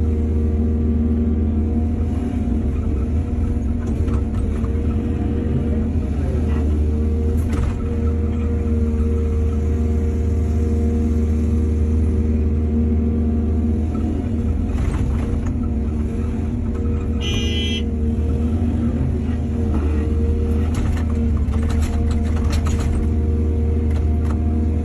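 Hydraulic excavator's diesel engine running steadily at a constant pitch, with a few scattered clanks. A brief high-pitched tone sounds about seventeen seconds in.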